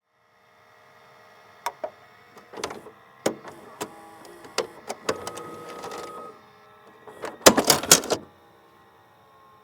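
VCR handling a VHS tape: the deck hums, then a run of sharp plastic-and-metal clicks and a short motor whir as the loading mechanism takes the cassette in, and near the end a loud rattling clatter as the tape is ejected.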